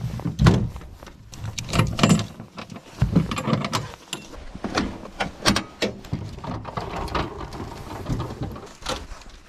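Ratchet tie-down strap being handled while strapping a snowblower down on a trailer: its metal buckle and hooks clink and knock in irregular clicks.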